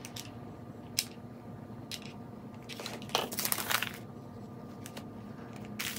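White paper lunch bag rustling and crinkling as it is handled and pressed flat. There are three light clicks about a second apart at the start and a longer stretch of crinkling about three seconds in.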